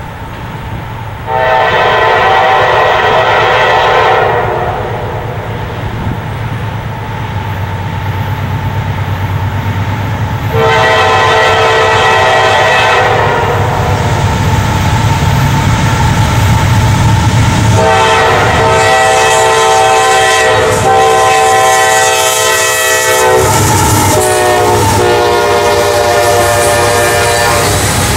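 CSX freight train's diesel locomotive horn sounding the grade-crossing warning: a long blast, a second long blast, a long one, then a short one and a final long one. Under it runs a low rumble from the locomotives, and near the end the clickety-clack of the loaded coal hopper cars rolling past.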